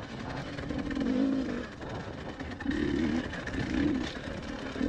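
Two-stroke enduro dirt bike engine revving up and down under throttle as the bike climbs, swelling about a second in and again twice near the end.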